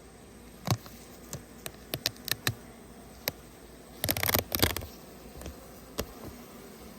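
Honeybees buzzing faintly around an opened hive, broken by scattered sharp clicks and knocks and a brief clattering rattle about four seconds in.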